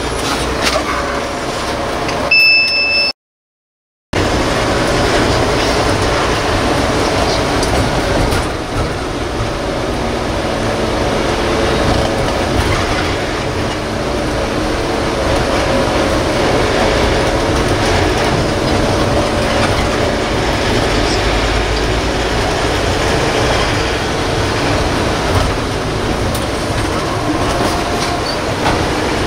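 Cabin noise of a Force Motors AC bus on the move: steady engine and road rumble. A short, high electronic beep sounds about two and a half seconds in, then the sound cuts out for about a second before the rumble resumes.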